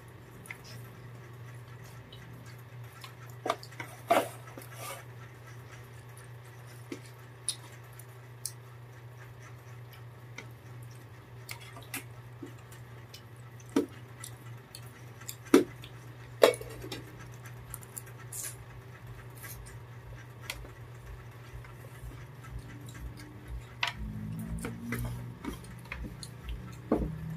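Metal spoons clicking and scraping against plastic plates as people eat, a dozen or so scattered sharp clicks over a steady low hum.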